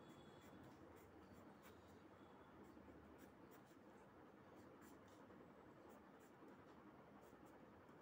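Faint scratching of a pencil sketching on drawing paper, heard as scattered soft ticks over low room noise.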